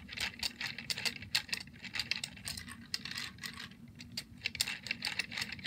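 Hand-spun Lego fan gadget: its plastic gears and pieces clicking and rattling in quick, irregular clicks as the blade turns.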